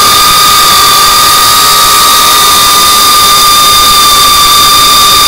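FPV freestyle quadcopter's motors and propellers whining at a steady pitch under even throttle, with a constant rush of noise beneath.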